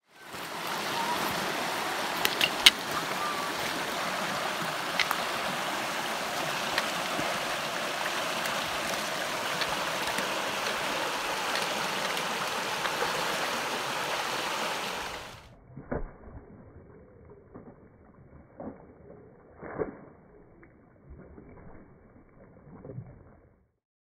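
Steady rush of a shallow, rocky stream, with a few sharp clicks. About fifteen seconds in it gives way to a quieter, muffled stretch of scattered splashes and knocks as a backpacker wades across with trekking poles.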